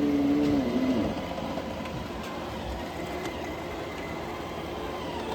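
Roomba robot vacuum running. A steady motor whine drops in pitch and cuts out about a second in, leaving a steady whir of the vacuum's motor and brushes.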